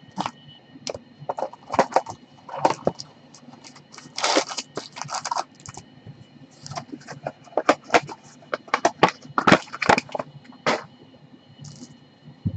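A 2015-16 Upper Deck Artifacts hockey card hobby box being torn open and its foil-wrapped packs pulled out and stacked: irregular crackling, crinkling and scraping of cardboard and wrappers, in clusters.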